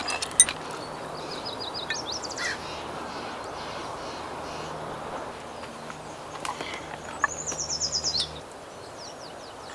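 Small songbird singing two short, rapid high trills, a few seconds apart, over a steady outdoor hiss. A sharp click comes just after the start, and a faint low hum stops near the end.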